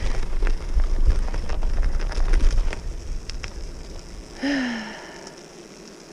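Bicycle tyres crunching and crackling through refrozen slush and ice over a low rumble, going quieter about three seconds in as they roll onto bare pavement. A short falling squeak comes about four and a half seconds in.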